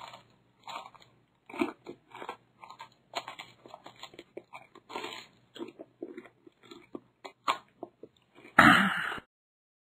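Chewing and crunching: irregular bites and munches, with one louder, longer crunch near the end, the sound of the bun being eaten.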